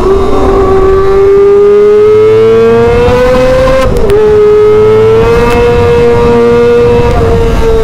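Kawasaki ZX-25R's inline-four engine, breathing through an SC Project titanium exhaust, running at high revs while being ridden. The pitch climbs steadily, dips sharply about four seconds in, then holds high with a small dip near the end. The exhaust is loud and shrill, with a low rumble of noise underneath.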